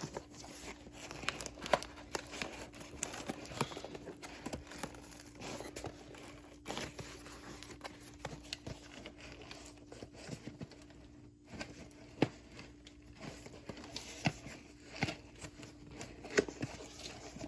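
A cardboard shipping box being opened by hand: tape tearing and packaging crinkling and rustling in irregular bursts, with sharper crackles now and then. A faint steady hum sits underneath.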